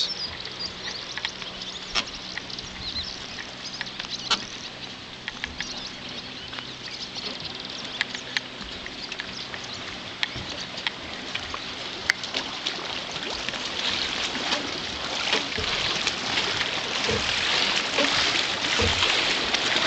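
Wake waves from a passing motorboat lapping and slapping against a floating pontoon, growing louder in the second half, with scattered knocks and a faint steady engine hum in the first half.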